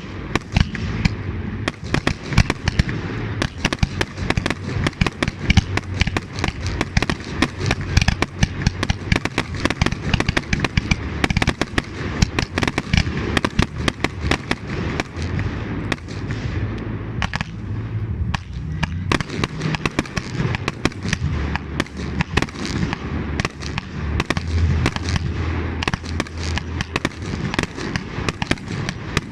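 Fireworks display: a dense, continuous barrage of bangs and crackles, many a second, over a low rumble, thinning briefly about two-thirds of the way through.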